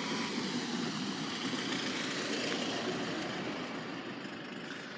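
A motor vehicle passing by: engine and road noise that builds, peaks about halfway through, then fades away.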